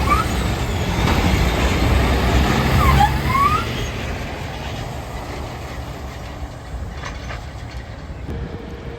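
A heavy truck passing close by: a loud, low engine and tyre rumble that fades away after about three and a half seconds, leaving quieter traffic noise.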